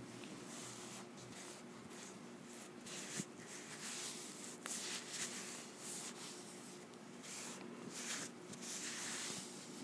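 Cotton pad wiped over facial skin: a series of soft, scratchy rubbing strokes, uneven in rhythm.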